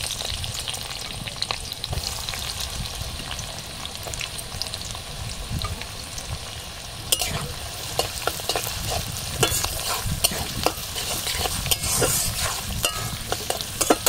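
Sliced onions sizzling as they fry in hot mustard oil in a kadai, a steady hiss. From about seven seconds in, a metal spatula stirs them, clicking and scraping against the pan.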